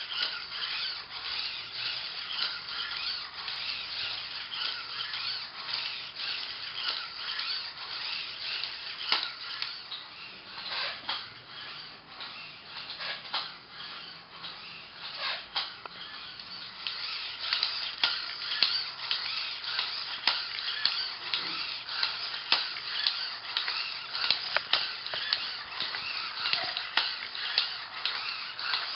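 The RC servo motors of a six-legged walking robot buzzing and whining as they drive its legs, with many short clicks and taps as the legs step. The sound drops somewhat for a few seconds midway.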